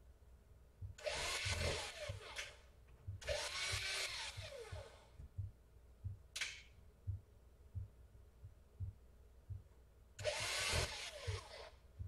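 Cordless drill/driver driving small screws into a laptop motherboard. The motor whirs in four runs that rise and fall in pitch: about a second in, around three to five seconds, a brief one near six seconds, and a longer one near the end.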